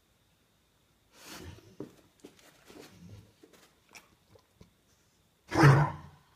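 A dog coughing: a hoarse cough about a second in, faint small sounds, then a loud, harsh cough near the end.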